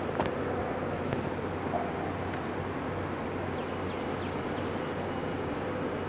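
Steady background hum and hiss of an airport terminal hall, with two sharp clicks in the first second or so.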